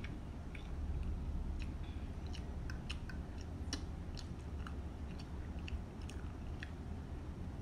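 Close-miked chewing of a mouthful of instant curry noodles, with many short, irregular wet mouth clicks over a steady low hum.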